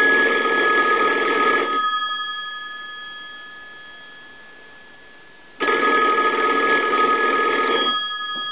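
A single-slot Touchtone payphone's bells ringing on an incoming call. The first ring stops about two seconds in and its bells ring on and fade away; a second ring of about two and a half seconds follows near the end.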